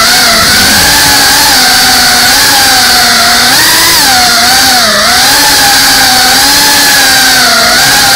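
FPV racing drone's brushless motors and propellers whining, heard on board. The pitch rises and dips with the throttle, with a clear dip about five seconds in.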